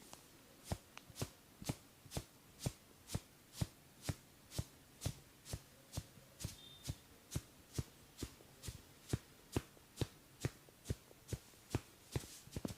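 Percussive massage strikes on a body: a steady beat of sharp knocks, about two a second.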